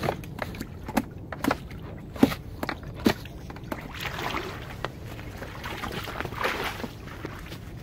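A small rowing boat knocking and clunking at the bank: irregular sharp knocks, the loudest about two and three seconds in, with two longer swishing sounds in the second half.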